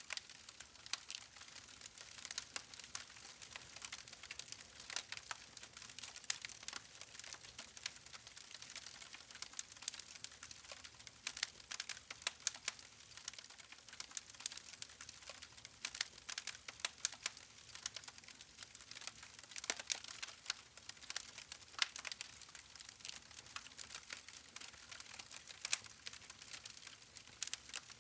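Wood campfire crackling: irregular sharp snaps and pops from the burning logs over a faint hiss.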